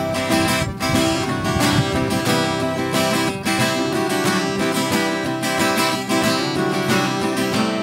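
Two acoustic guitars playing an instrumental passage, strummed with a pick in a steady rhythm.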